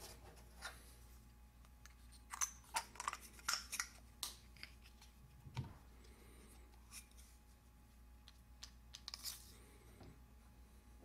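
Faint scattered clicks and rustles of small taper parts being handled on a workbench, with a soft knock about five and a half seconds in.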